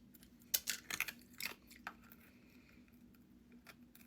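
Teeth biting into a hard-shelled jumbo fruit gumball, giving a few sharp crunches in the first two seconds.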